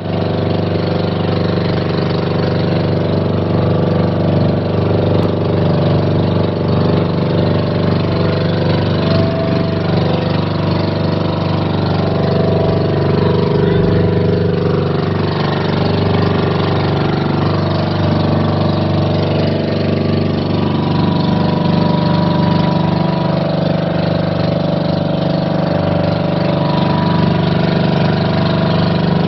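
Engine of a motorized outrigger boat (bangka) running at a steady speed while under way, a loud, even drone with no change in pitch.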